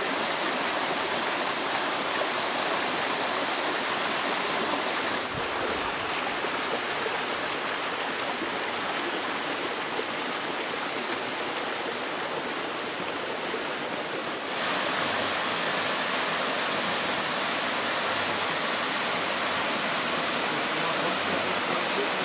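Water rushing from a waterfall, a steady dense wash of noise. Its hiss is a little duller from about five seconds in and fuller again from about fourteen seconds.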